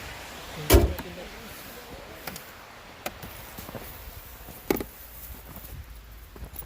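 A snow brush knocking and scraping against a van's body while clearing snow off it. The loudest thump comes about a second in, with lighter knocks near three and five seconds.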